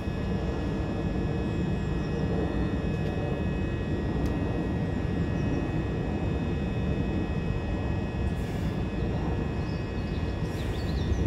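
Electric multiple unit standing at the platform, its electrical equipment giving a steady hum with several high whining tones over a low rumble.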